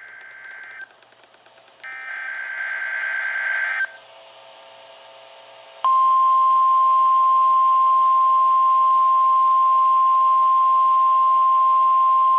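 NOAA Weather Radio test signal from station KEC55. First come two short bursts of SAME digital header data, a harsh high-pitched buzzing warble about two seconds long each, separated by a brief hiss. After a pause of about two seconds, the 1050 Hz warning alarm tone starts abruptly about six seconds in and holds steady at one unchanging pitch.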